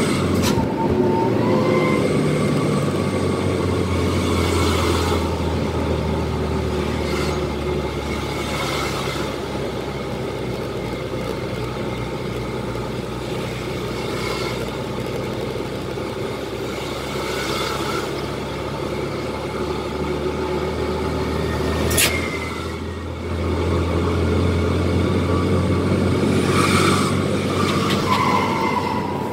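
Twin-turbo diesel truck engine pulling on the road, heard from inside the cab. A high whistle rises and fades several times over the steady engine sound, and about three quarters of the way through a sharp click is followed by a brief drop in the engine sound before it pulls again.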